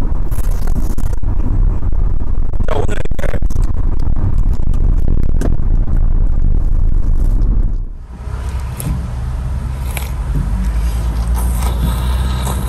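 Road and wind noise of a car driving on a highway, a dense low rumble, with a few slurping and eating noises over it. About eight seconds in it dips briefly and comes back as the open-roofed car's steady road noise with an engine hum.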